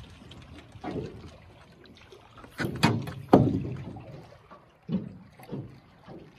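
Knocks and thumps on a small metal fishing boat's hull: one about a second in, the loudest two close together about halfway through, then three lighter ones near the end.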